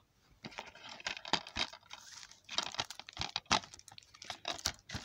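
Plastic shrink-wrap on a DVD case crinkling and crackling in irregular bursts, with light clicks and taps from the plastic case, as the case is handled and turned over.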